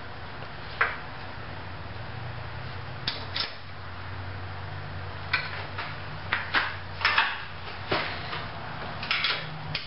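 Metal clanks, knocks and short scrapes of a wood lathe's cast-iron tool rest and banjo being slid and set close to the work, about a dozen irregular knocks, over a steady low hum.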